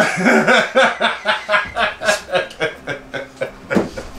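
Hearty laughter: a run of quick chuckles, about four a second, loudest at the start.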